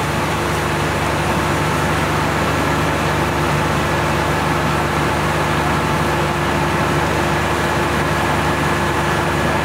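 Fire-truck engines running steadily, a constant hum with a rushing hiss over it.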